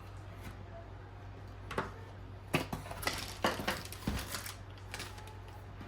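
Hard plastic being handled: a string of sharp clicks and crackles, a couple about two seconds in and a busier cluster through the middle, over a steady low hum.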